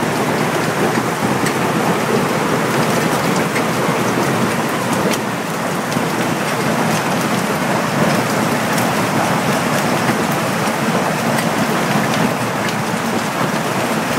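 Hailstorm: a steady, dense hiss of heavy rain with many sharp clicks of hailstones striking.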